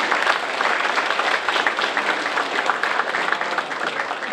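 Audience applauding, many hands clapping steadily, tailing off near the end.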